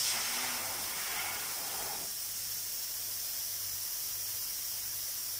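Freon hissing as a flushing dose of refrigerant blows through a refrigerator's sealed circuit, dying away about two seconds in.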